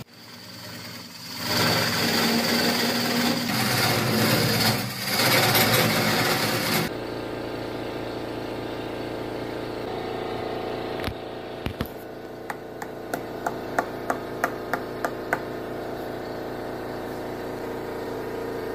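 Wood lathe running while a hollowing tool's cutter cuts inside a spalted-wood hollow form: a loud, rough cutting noise for the first several seconds, then a steadier, quieter hum of the spinning lathe. In the middle, a quick run of sharp clicks sounds over the hum.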